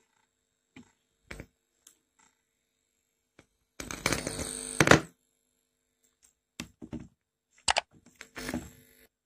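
Scattered sharp clicks and knocks of handling, with a busier clatter lasting about a second some four seconds in.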